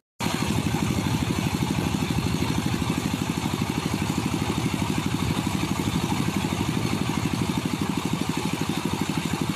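A loud, steady buzz that pulses rapidly and evenly, starting abruptly after a brief silence and running unchanged.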